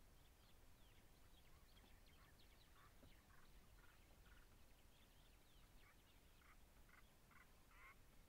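Very faint bird calls over a low background rumble: many short, high, falling chirps, with a series of harsher, raspy calls about two to three seconds in and again near the end.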